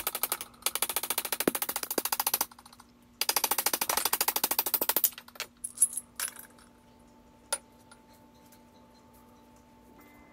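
Quick hammer blows, several a second, ringing on a steel axe head held in a vise as the old wooden handle is driven out of the eye, in two runs of about two seconds each. Then a few light clicks and one sharp knock, and a faint steady hum.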